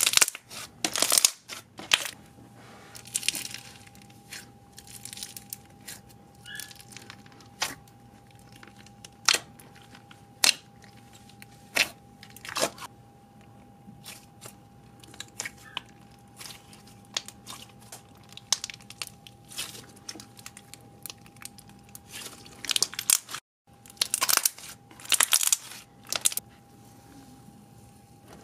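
Hands squishing, stretching and poking slime, some of it studded with foam beads: irregular sticky pops and crackles, a few of them sharp, over a faint steady hum.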